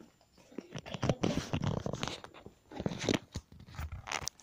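Close, irregular rustling, crunching and clicking handling noises, in a dense run from about a second in until near the end.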